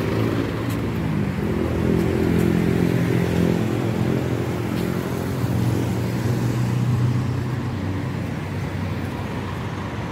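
Engine of a red songthaew, a pickup-truck taxi, running close by as it pulls up, its pitch shifting a little, over the noise of street traffic.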